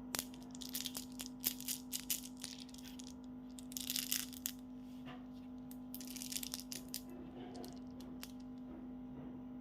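Candy packaging being handled and opened: short clicks and crinkling rustles in three clusters of bursts, over a steady low hum.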